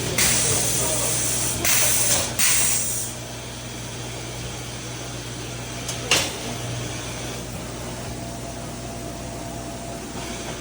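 Three bursts of hissing in the first three seconds, like air or a spray, over a steady machine hum, with a single sharp click about six seconds in.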